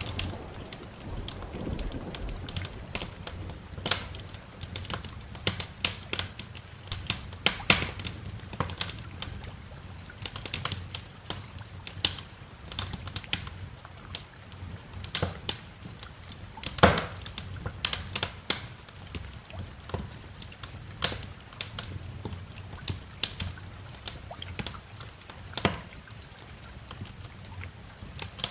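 Wood fire in a fireplace crackling, with irregular sharp pops and snaps over a faint low hiss. A low rumble fades away in the first couple of seconds.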